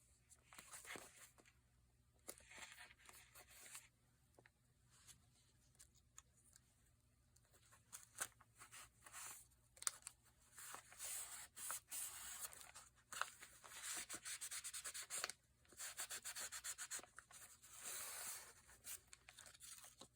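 Paper and cardstock being handled and rubbed: intermittent soft rustling and rubbing strokes with scattered light taps, getting busier in the second half.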